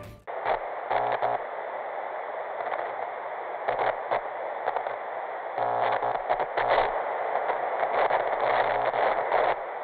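Television static sound effect: a steady, thin hiss like a radio tuned between stations, cutting in suddenly just after the start, broken now and then by crackling glitches and short low buzzes.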